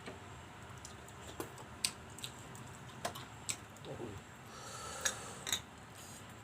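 Eating sounds from a meal of green mussels and shrimp in sauce: about seven short, sharp clicks scattered irregularly, with faint chewing between them.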